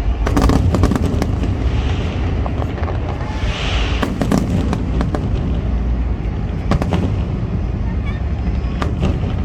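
Fireworks exploding in a big display: clusters of sharp bangs and crackles, about half a second in, around 4 s and near 7 s, over a continuous deep rumble, with crowd voices underneath.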